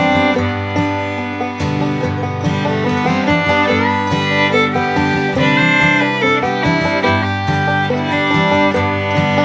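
Background music: an upbeat country-style tune with fiddle and plucked strings.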